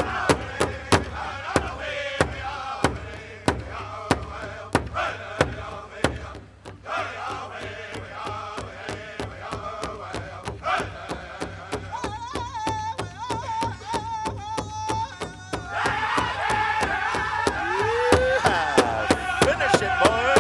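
Powwow drum group beating a large shared drum in a steady, quick beat while singing a chicken dance song in high male voices. A single voice carries the song for a few seconds, then the full group comes back in, louder.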